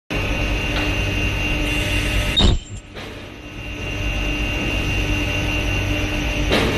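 Ultrasonic runner-gate separating machine running: a steady mechanical hum with a faint high whine. About two and a half seconds in there is a loud clunk, then the noise briefly drops, and there is another short knock near the end.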